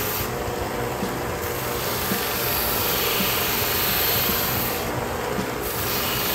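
A 1-by-30-inch belt and disc combination sander running, its belt rasping against the edge of a leather magazine holder as the edge is sanded. The rasp grows a little louder in the middle as the leather is pressed in.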